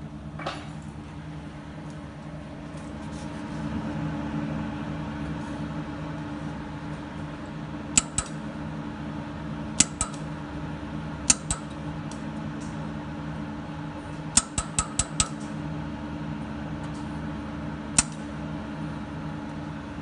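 Pulsed laser spot welder firing onto sheet metal, each pulse a sharp snap: three pairs, then a quick run of five, then a single near the end. A steady machine hum runs underneath.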